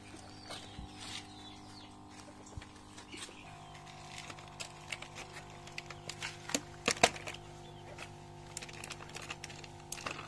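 Plastic bag rustling and scattered clicks of handling, with one sharper knock past the middle, over a steady hum that shifts in pitch about three and a half seconds in.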